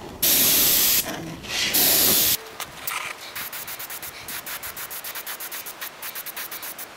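Paasche hobby airbrush blowing two loud hissing bursts of air, the first just under a second long and the second about half a second. A fast, irregular run of faint ticks follows.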